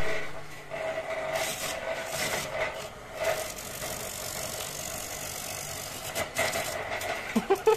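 Small quarter-horsepower electric motor of a homemade coconut grater running steadily with a hum, spinning the grater head while a half coconut is pressed against it, adding a rough scraping rasp as the flesh is shredded.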